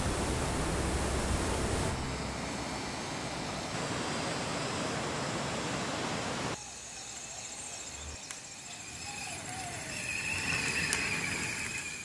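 Rushing stream water, a loud steady wash, dropping abruptly about six and a half seconds in to the quieter flow of a slow creek.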